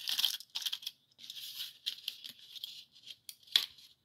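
Paper and card packaging rustling and scraping in irregular bouts as pendants are lifted out of a black card insert, with a sharp click about three and a half seconds in.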